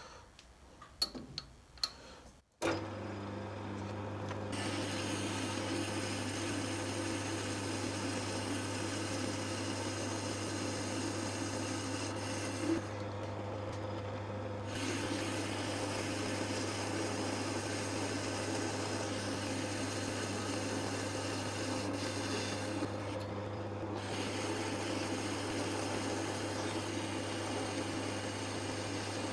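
Metal-turning lathe starting up about two and a half seconds in, after a few clicks, then running steadily while a cutting tool turns a diameter down, the motor's steady hum under the rough noise of the cut.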